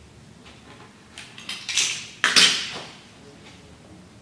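Handling noises at a work table as a hand tool and wires are moved: a few light clicks, then a rustle building into one short scraping clatter a little past halfway.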